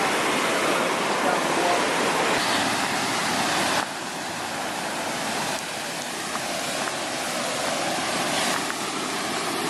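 Water rushing down a waterfall: a loud, even roar of falling water. The level drops abruptly about four seconds in.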